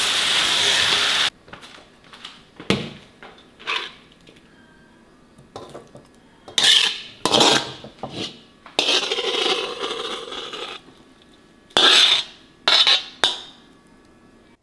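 Food sizzling in a wok for about a second, cutting off abruptly. Then a spatula clinks and scrapes against the pan and a glass serving bowl as the stir-fry is dished up: a string of sharp clinks, with a longer scrape near the middle.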